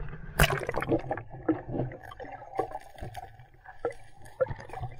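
Sea water splashing and gurgling as the camera is dipped under the surface, a loud splash about half a second in, then muffled underwater sloshing with scattered small clicks.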